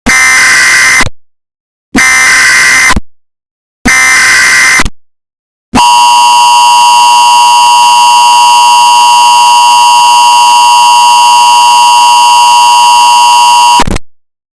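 Emergency Alert System signal: three one-second bursts of SAME header data about two seconds apart, then the steady two-tone EAS attention signal held for about eight seconds before cutting off abruptly. The tones announce an emergency alert broadcast.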